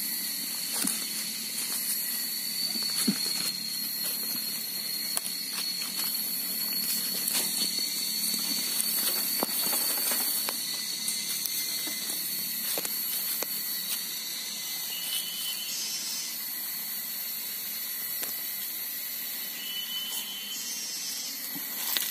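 A steady, high-pitched drone of forest insects, with scattered crackles of footsteps on dry leaf litter.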